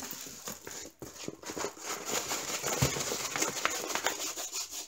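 Rustling and crinkling of paper and plastic packaging as a rolled diamond painting canvas in its plastic film and a bag of drills are handled, with many small clicks and one thump about three seconds in.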